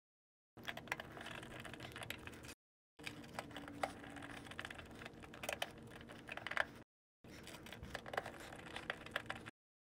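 Faint small clicks, ticks and scrapes of a screwdriver turning terminal screws and of cable wires being pushed into the terminal block of a mini-split condensing unit. They come in three stretches, each cut off by sudden silence.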